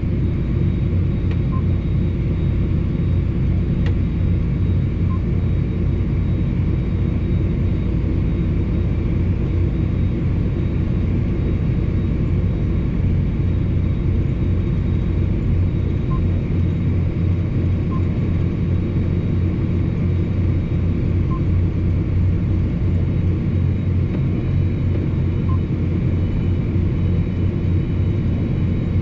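John Deere 8245R's six-cylinder diesel engine and drivetrain droning steadily as heard inside the tractor cab while driving on the road, with a steady low rumble and a few faint high blips now and then.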